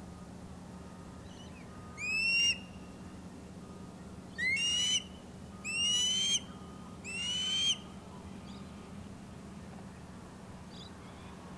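Ospreys at the nest calling: four loud, rising whistled calls, each under a second long, about a second and a half apart, over a steady low hum.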